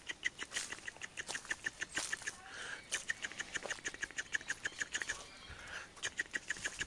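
A bird chattering in a rapid run of short clicking notes, several a second, pausing briefly twice.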